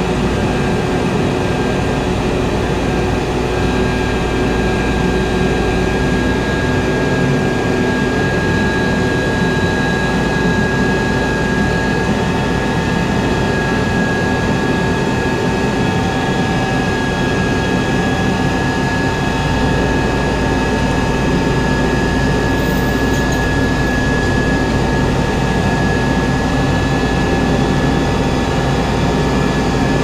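Heavy engine running steadily under load with a constant whine over it, typical of a rotator wrecker's engine and hydraulics working while an overturned mixer truck is winched upright.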